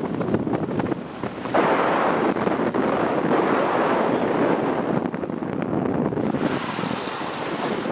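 Heavy wind buffeting on the microphone of a moving car, over road rumble, stepping up sharply about a second and a half in, with an added high hiss near the end.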